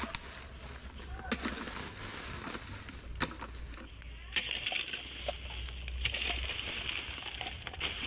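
Mammoty (long-handled digging hoe) chopping into soil and scraping earth, a few sharp strikes spread out. About halfway a steady high hiss comes in and carries on.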